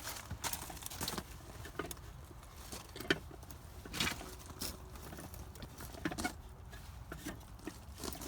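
Irregular footsteps with light knocks and rustles from handling a lamp and its cord, scattered taps rather than a steady rhythm; the sharpest tap comes about three seconds in.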